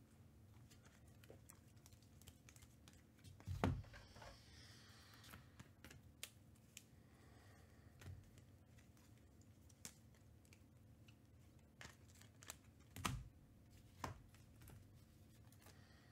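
Near silence broken by scattered soft taps and knocks of trading cards being handled and set down on a mat. The loudest comes about three and a half seconds in, with two more near thirteen and fourteen seconds.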